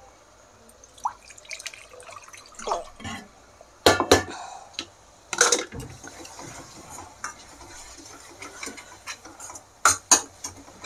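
Steel spoon scraping and clinking against a steel kadhai as a thick, wet onion-spice masala is stirred, with sharper knocks about four and five and a half seconds in and again near the end.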